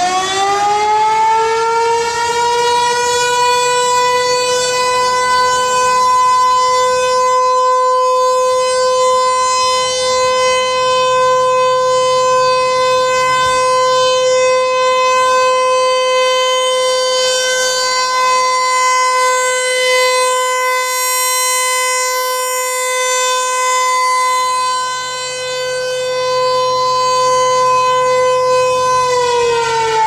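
American Signal T-128 rotating single-tone tornado siren sounding a steady alert tone during its 30-second test. It finishes winding up in the first second, holds one steady pitch while the horn turns, swelling and fading a little in loudness, and starts to wind down just before the end.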